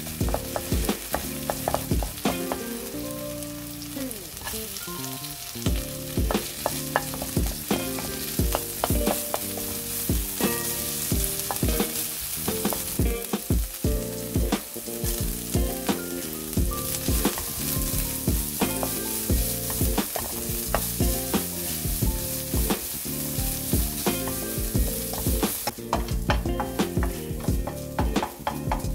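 Garlic, onion and carrots sizzling in hot oil in a nonstick wok while a wooden spatula stirs them, with frequent short scrapes and taps of the spatula against the pan.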